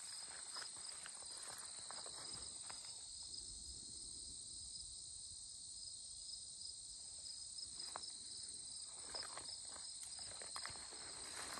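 Steady chorus of crickets trilling at a high, even pitch. Footsteps swish through meadow grass for the first few seconds, stop for a while, and start again near the end.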